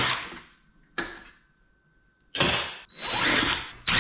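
Power drill fitted with a star (Torx) bit running in short trigger bursts, backing out screws from a computer case; a burst stops about half a second in, and after a pause three more bursts follow near the end.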